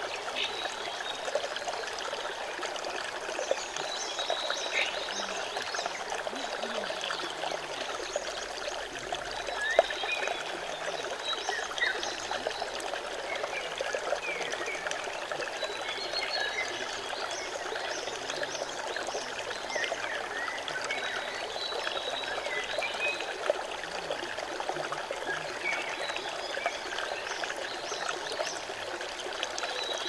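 Shallow forest stream running over rocks and pebbles: a steady babble of water with many small splashes and gurgles.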